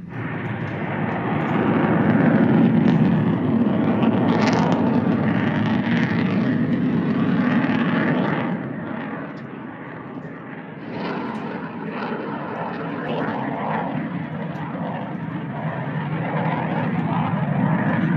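Loud aircraft engine roar, swelling for several seconds, easing off about halfway through, then building again.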